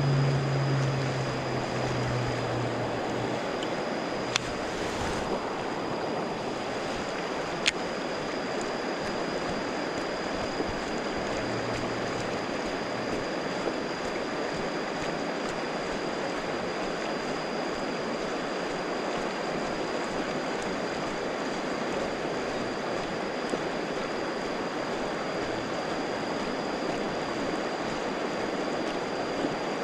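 Steady rushing of flowing river water, with a thin, steady high tone over it and a few sharp clicks, the clearest about four and eight seconds in.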